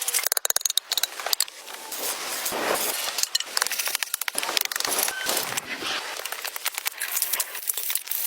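Crackling, scraping and rustling of hands-on work with wood and brush, with a quick run of sharp clicks in the first second and irregular crackles after.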